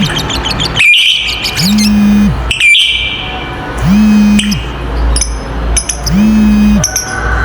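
Lovebird chirps and short chattering calls, sharp and high, thickest in the first few seconds. Under them a low humming note swells and fades about every two seconds.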